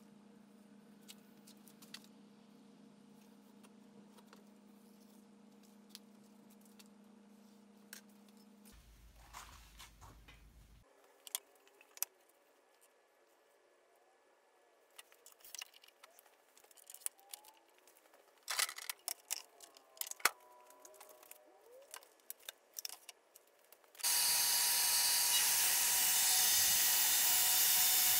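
Faint clicks of handling over a low steady hum, then sharper clinks and knocks as an aluminium track-saw guide rail is laid and lined up on a walnut slab. About 24 seconds in, a dust extractor hooked to a Makita track saw switches on suddenly with a loud, steady hiss.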